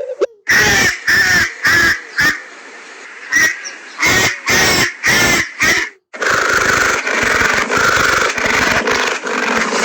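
Duck-quacking ringtone from an animal ringtones app: a run of short, separate quacks, then from about six seconds in an unbroken stretch of rapid quacking.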